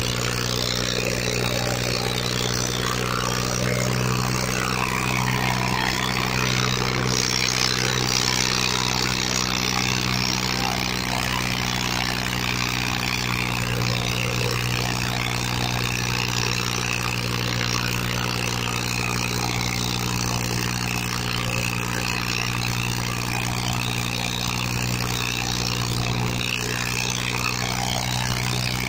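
Farmtrac 45 tractor's three-cylinder diesel engine running steadily under heavy load, pouring black smoke as it drags two harrows chained in tandem through ploughed soil.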